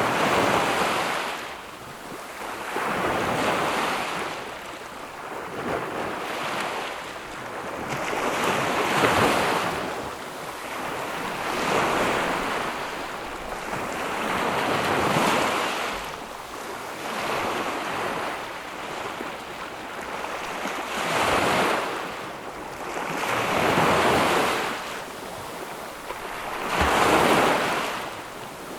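Small ocean waves breaking and washing up a sandy beach, one after another every three to four seconds, each a rush of surf that swells and fades.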